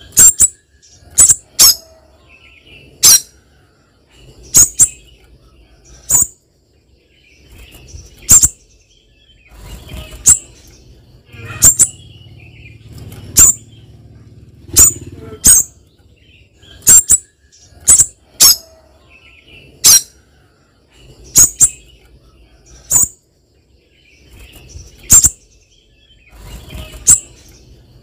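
Caged female spiderhunter giving short, sharp, high-pitched chip calls, singly or in quick pairs, every second or two. This is her call to the male.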